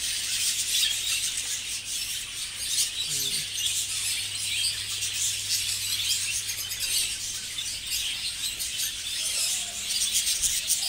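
A flock of budgerigars chattering, a dense, unbroken din of many short chirps and squawks overlapping, with a low steady hum underneath.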